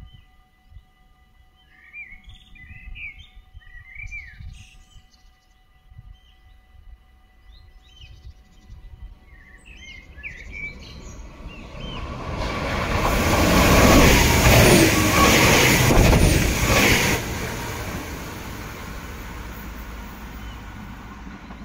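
Birds chirping, then two coupled Stadler WINK multiple units approach and rush past at around 130 km/h: a rising rush of wheels on rail and air that is loudest about two-thirds of the way in, cuts back after a few seconds and trails away.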